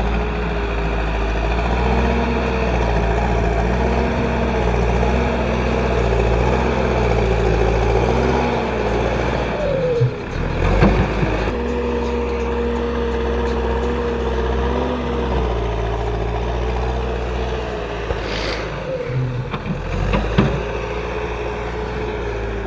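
Escorts Digmax-2 backhoe loader's Kirloskar diesel engine running under working load, its note rising and falling as the load changes. There are brief knocks about halfway through and again near the end.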